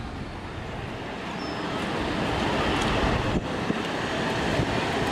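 Wind buffeting the microphone over the rumble of traffic and a tram running on street rails, growing louder through the second half.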